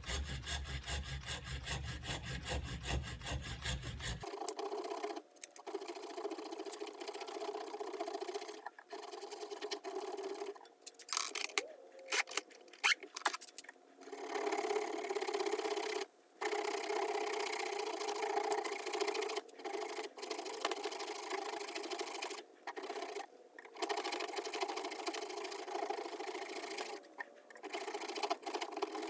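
Scraping and rubbing of a hand tool against the remains of an old wooden screwdriver handle as it is worked off the steel shank, in short stretches with abrupt breaks; a quick, even rhythm over the first few seconds.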